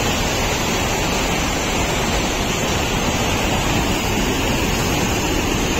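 Steady rush of fast-flowing river water pouring through a dam, an even, unbroken noise.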